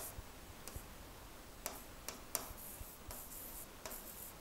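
Faint scratching and light taps of a stylus writing on a pen tablet: about half a dozen soft clicks over low hiss.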